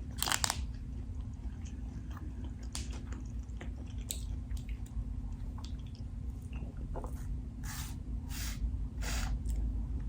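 A person chewing food close to the microphone: soft wet mouth sounds with a few short clicks, and three even chewing strokes near the end. A steady low hum runs underneath.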